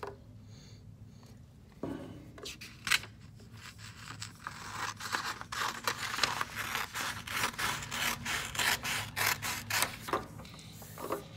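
Scissors cutting through a sheet of colored paper: a quick run of short snips that starts about two seconds in and eases off near the end.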